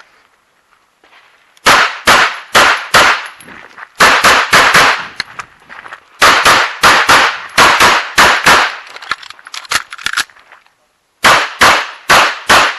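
Pistol fired rapidly in strings of shots, mostly in quick pairs about a third of a second apart, with short pauses between strings. The pairs are typical of IPSC double-taps on each target.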